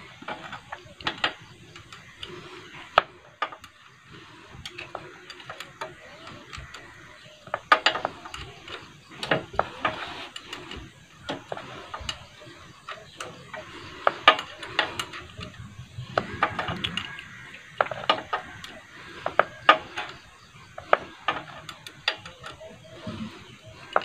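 Irregular metallic clicks and clinks of a 10 mm ring spanner working a nut on a motorcycle gear-shift lever, tightened a little at a time.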